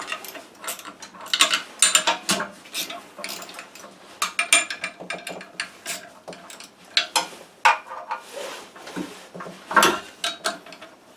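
Socket ratchet clicking in short, irregular runs, with metal clinks, as the bolts of a snowmobile drive pulley's outer sheave are drawn down a little at a time to seat the belt.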